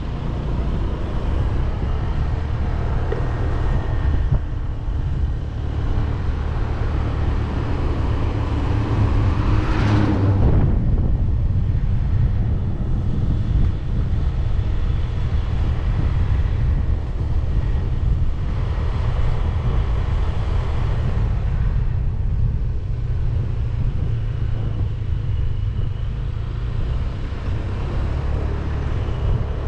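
Motorcycle engine running steadily under way, with wind and road noise over it. A louder whoosh swells up and fades about ten seconds in.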